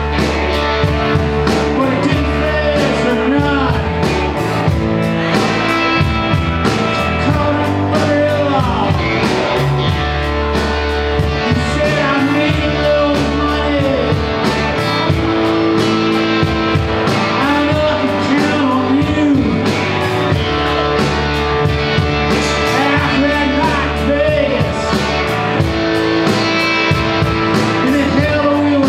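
Live rock band playing loudly and steadily: electric guitars with bending notes, bass guitar and drums with a steady cymbal beat, with singing.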